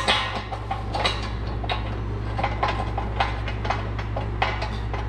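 Steel bolts and nuts clicking and clinking against the steel frame of a hydraulic shop press as they are fitted and started by hand, in a string of irregular sharp clinks with the loudest right at the start, over a steady low hum.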